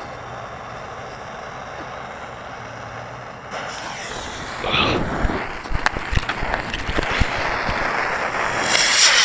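Model rocket launch heard from a camera riding on the rocket: a burning fuse hisses steadily, then a few seconds in the motor lights and the sound jumps to a loud rushing noise with sharp crackles and wind noise as the rocket climbs, loudest near the end.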